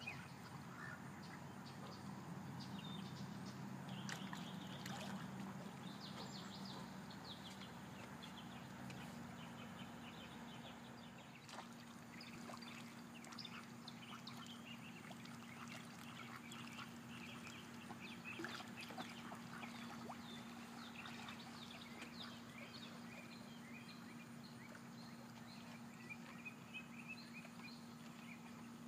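Ducks quacking and calling faintly on and off, many short calls scattered throughout, over a steady low hum.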